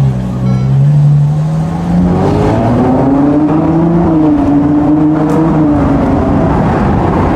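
Ferrari 812 GTS's naturally aspirated 6.5-litre V12 pulling under load with the roof open, its engine note climbing over a couple of seconds and then holding, over wind and road noise.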